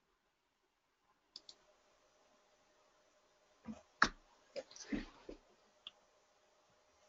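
A few faint clicks and knocks at a computer desk, in a cluster about four seconds in with one louder knock, over a faint steady hiss that comes in about a second and a half in.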